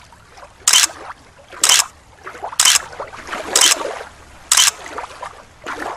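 Short splashy water noises, repeating evenly about once a second.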